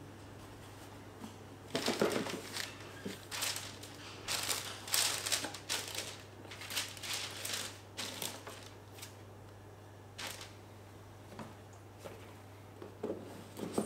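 Shoe packaging being handled: irregular bursts of paper crinkling and rustling with a few small knocks, busiest through the middle seconds, over a steady low hum.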